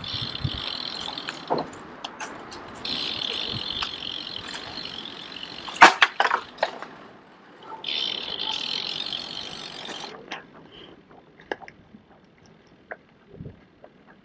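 Bicycle freewheel ticking in stretches as the rider coasts, with a brief cluster of sharp knocks about six seconds in; the ticking stops about ten seconds in, leaving only scattered light clicks.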